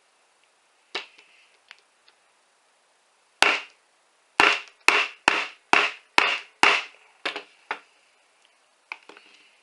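Sharp, hard knocks of an Ozark Trail Flipper folding knife being struck repeatedly to drive its blade through copper NM-B electrical wire. There is one knock about a second in, then about seven loud strikes at roughly two a second, then a few lighter taps near the end.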